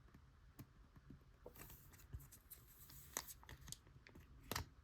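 Near silence with a few faint taps and rustles of baseball trading cards being handled.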